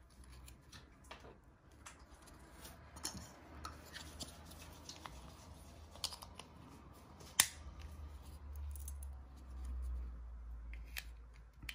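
Small plastic clicks and rubbing from a Mercedes key fob's case being handled and fitted back together, with the metal emergency key blade slid back in. The sharpest click comes about seven seconds in.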